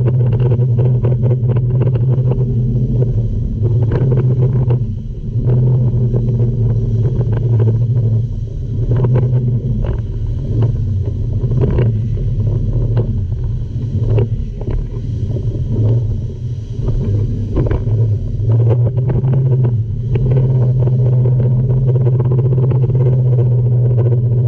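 Speedboat engine running at speed, a steady low drone, with sharp knocks and splashes as the hull hits the rapids. The engine note wavers and dips between about five and nineteen seconds in, then holds steady again.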